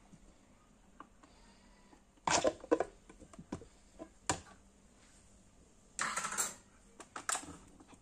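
Handling noise: a few short clicks and knocks of hard kitchen items, in small clusters about two seconds in, around four seconds, and a brief rattle about six seconds in.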